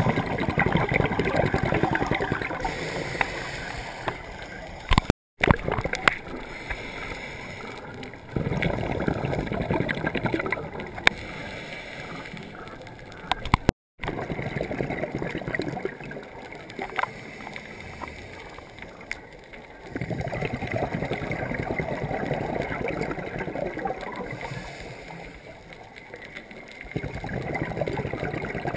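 A scuba diver breathing through a regulator underwater: long gurgling rushes of exhaled bubbles, four of them several seconds apart, with quieter stretches between and a few sharp clicks. The sound cuts out briefly twice.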